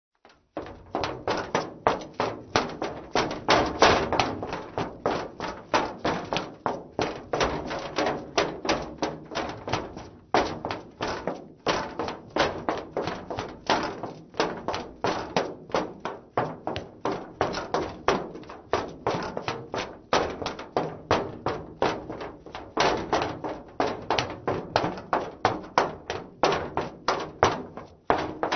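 A woman running in heeled shoes on a metal surface: quick, even footsteps, several a second, each a sharp hit on the metal.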